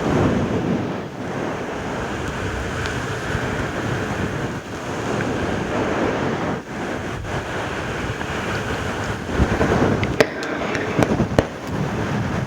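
Close-miked ASMR mouth sounds: dense, wet crackling, with a few sharper clicks near the end.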